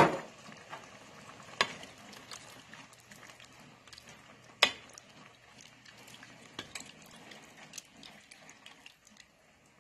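Wooden spoon stirring a thick tomato and ground beef sauce in a stainless steel pot, with a few sharp knocks of the spoon against the pot: a loud one at the start, others about one and a half and four and a half seconds in, and lighter ticks between. The sauce bubbles faintly underneath.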